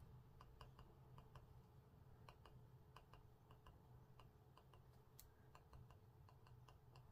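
Faint, quick taps of a pen tip dotting onto card, a few light ticks a second at an uneven pace.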